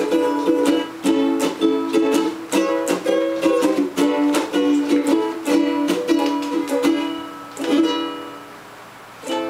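Ukuleles strumming chords in a steady rhythm. A little before the end a final strummed chord rings out and fades away.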